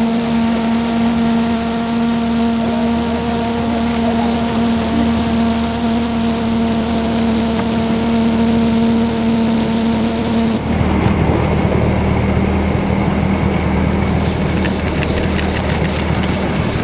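1/8-scale live steam model locomotive making a steady hiss with a humming tone. About ten seconds in the sound changes suddenly to a lower rumble as it runs along the track, with a quick run of clicks near the end.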